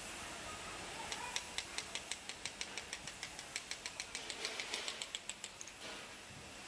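Gravity-feed paint spray gun hissing steadily with compressed air as it sprays paint onto car bodywork. A fast, regular ticking of sharp clicks, about five a second, runs over it from about a second in until near the end.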